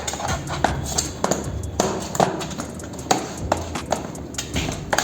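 Repeated sharp plastic clicks and taps as a laptop's bottom cover is pressed down and snapped back into place, a few clicks a second at uneven intervals.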